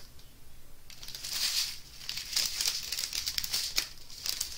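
Small clear plastic bags of diamond-painting drills crinkling as they are handled and turned over. Quiet at first, then a run of short, irregular crinkles from about a second in.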